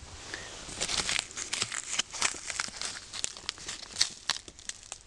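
Dense, irregular crinkling and rustling as a dried, plastic-wrapped banana stem is handled close to the microphone, starting about a second in.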